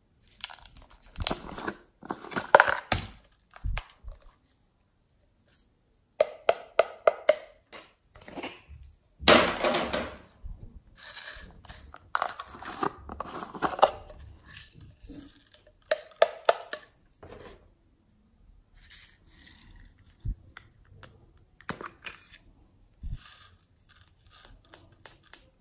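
Plastic containers being handled and opened by hand, with lids clicking and plastic rubbing and scraping. The sound comes in bursts with short pauses between them, and thins to scattered clicks in the second half.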